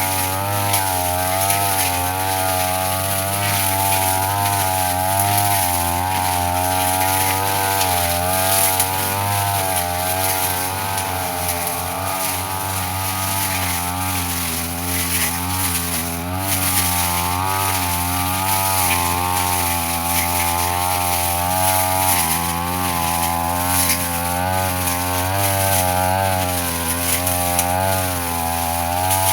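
Brush cutter engine running continuously at part throttle, its pitch wavering up and down as the blade cuts through grass and undergrowth.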